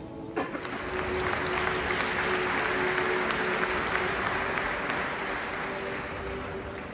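A large arena audience applauding, coming in suddenly about half a second in and tapering slightly near the end.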